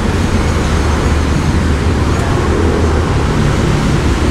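Drinks vending machine running as it dispenses a drink into a cup, a steady low hum with an even rushing hiss.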